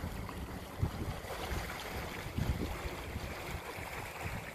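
Wind buffeting the microphone over the rush of water churned up in the wake behind a moving boat, with uneven low gusts throughout.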